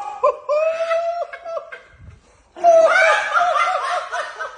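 A person laughing in high-pitched stretches, falling quiet briefly about halfway, then breaking into louder, quick-pulsing laughter.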